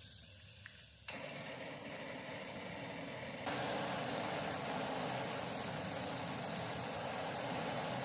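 A motor running steadily, stepping up in loudness about a second in and again about three and a half seconds in.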